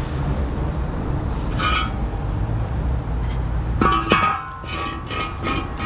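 Steel axle stands and recovery gear clinking and ringing as they are handled: one clink about a second and a half in, then a quick run of ringing metal knocks near the end, over a diesel engine idling.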